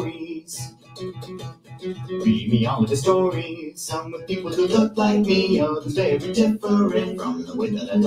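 Background music led by plucked and strummed acoustic guitar.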